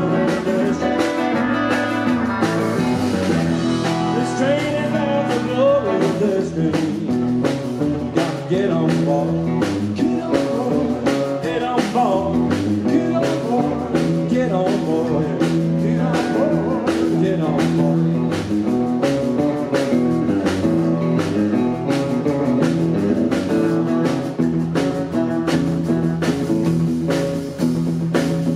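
Live rock and roll band playing: electric guitar over an upright double bass and a drum kit keeping a steady beat.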